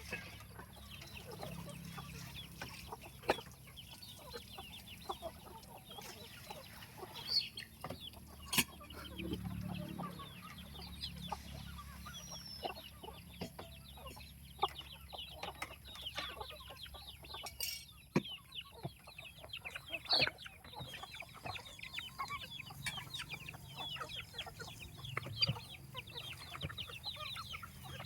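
Free-range chickens clucking softly as they forage, with short calls and scattered sharp clicks throughout, growing busier in the second half.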